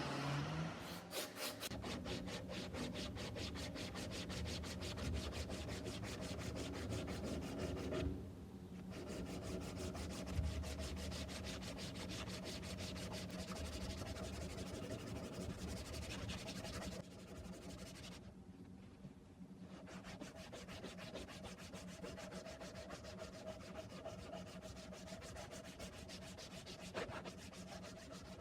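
Wood being sanded, a steady rubbing scrape that breaks off briefly about eight seconds in and again near eighteen seconds.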